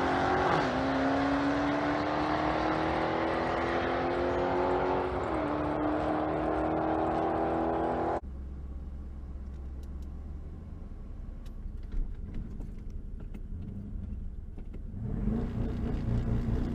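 Twin-turbo 351 Windsor V8 in a Ford Ranger pulling at full throttle down the drag strip with the boost turned up. Its pitch climbs through the gears, with an upshift about half a second in and another about five seconds in. About eight seconds in the throttle closes suddenly and the engine drops to a low rumble while the truck coasts, then picks up again near the end.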